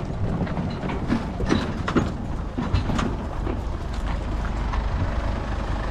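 Boat motor running at low speed with a steady low rumble, under irregular knocks and rattles in the first few seconds.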